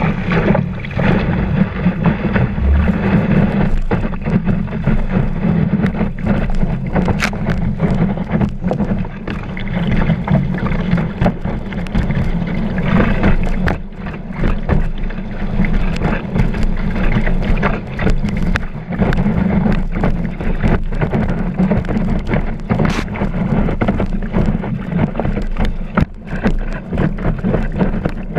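Water rushing and slapping against a kiteboard as it planes across chop, with frequent short knocks as the board hits the waves and wind buffeting the microphone of the GoPro mounted on the board.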